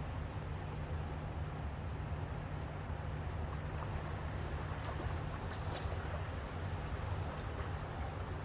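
Steady low hum under an even rushing noise, with a few faint clicks in the second half.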